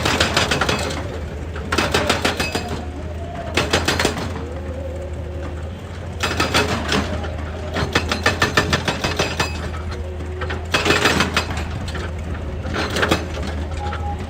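Excavator engine running steadily under repeated bursts of rapid clattering knocks, each lasting about a second, as the machine works rock.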